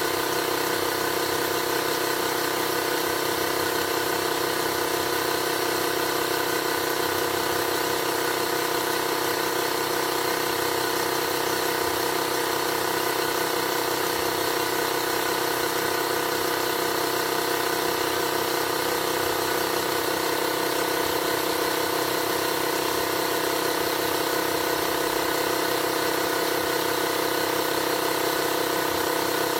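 Avid Power 12 V/120 V portable tire inflator's twin compressor motors running steadily, pumping up a car tire toward its 32 psi set point. A constant mechanical hum with several steady tones.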